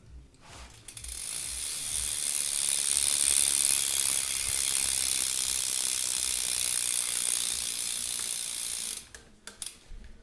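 Rear hub of a BMX bike (Alex hub with a 9-tooth driver) freewheeling as the wheel spins, its pawls ratcheting so fast they run together into a loud, steady buzz. It builds about a second in, holds for about eight seconds, and stops near the end with a few separate clicks.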